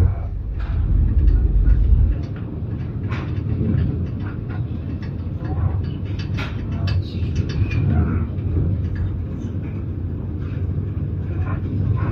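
Passenger train running, heard from inside the carriage: a steady low rumble with scattered small clicks and knocks. The deepest part of the rumble eases about two seconds in.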